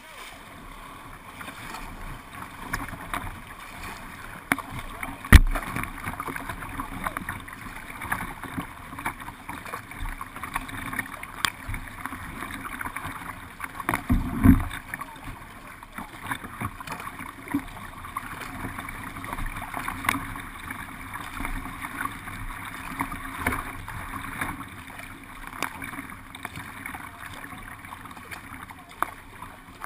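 Several kayaks being paddled hard, with paddle blades splashing and churning water continually. There is a sharp knock about five seconds in and a louder low thump around fourteen seconds.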